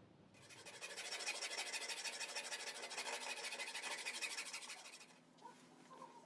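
A harsh scraping or grinding sound, steady for about four and a half seconds before it stops.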